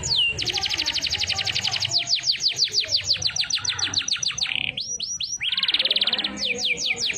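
Domestic canary singing a long, varied song: a very fast trill, then runs of quick falling whistles at about eight a second, a short buzzy trill, and more falling whistles in the siren-like phrasing canary keepers prize.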